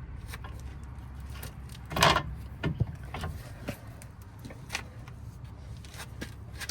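Metal clinks and knocks from hand tools and parts during front suspension work: a louder clank about two seconds in, then scattered lighter clicks over a steady low hum.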